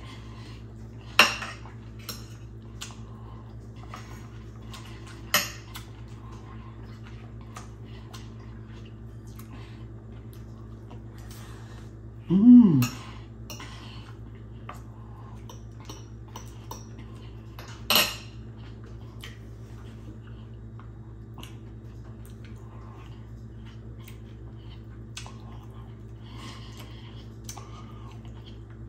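Metal fork clinking and scraping on a ceramic plate, many light ticks with sharper clinks about a second in, around five seconds in and around eighteen seconds. A short hummed 'mm' with falling pitch around twelve seconds, over a steady low hum.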